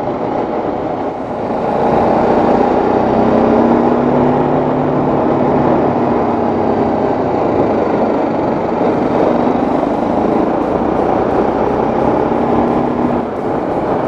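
Motorcycle riding steadily along a road, its engine and riding noise running throughout, with background music underneath that picks up a light ticking beat about two-thirds of the way in.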